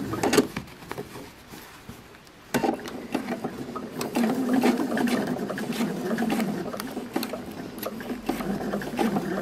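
Domestic sewing machine stitching a curved quilt seam through layered cotton at low speed. It pauses briefly near the start and starts up again about two and a half seconds in, then runs steadily.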